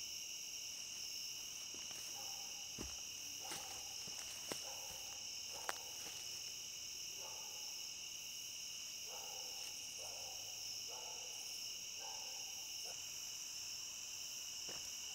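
Steady night chorus of crickets and other insects, a continuous high whirring, with a few faint ticks about 3, 4.5 and 6 seconds in.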